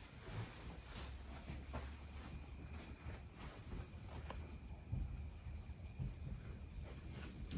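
Crickets trilling steadily, one unbroken high note, with a low hum under it and a few faint knocks and steps.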